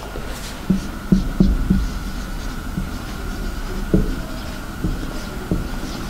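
Marker pen writing on a whiteboard: a string of short, irregular taps with light high squeaks as the letters are drawn, over a steady low hum.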